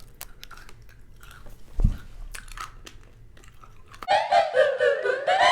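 Close-miked chewing of an MRE stick of chewing gum: soft wet mouth clicks, with a louder thump just under two seconds in. About four seconds in, upbeat electronic outro music starts.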